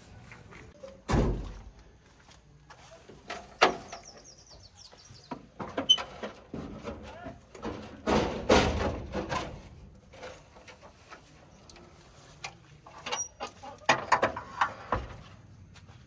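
Scattered knocks and clunks of hands working on metal vehicle panels: a heavy thud about a second in, then a cluster of metal clanks near the middle and another near the end as the front grille panel of a Tata 2518 truck is unlatched and swung open.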